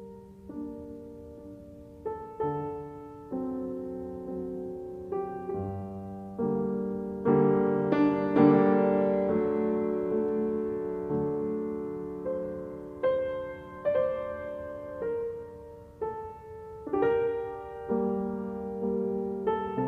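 Gentle piano music: slow chords and single notes that each ring out and fade.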